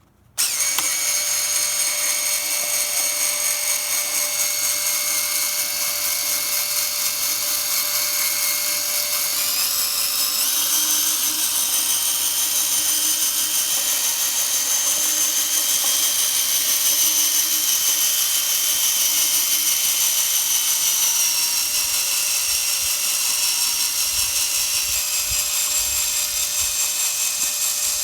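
Variable-speed electric drill starting abruptly and running steadily with a high whine as it friction-drives the grinding-wheel crank of a homemade automated Ambu-bag ventilator. Its pitch steps up about ten seconds in and drops back in two steps later on, as the drill speed is changed.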